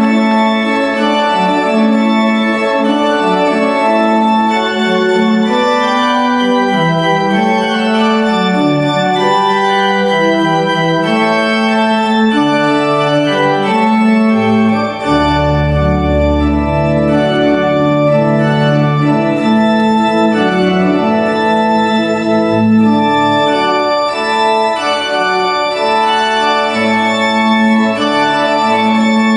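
Organ playing recessional music in sustained chords, with deep bass pedal notes coming in about halfway through.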